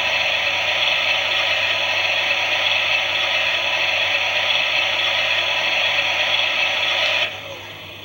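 Klein toy Miele washing machine's small electric motor whirring steadily as it turns the drum, with a light rattle, stopping abruptly about seven seconds in.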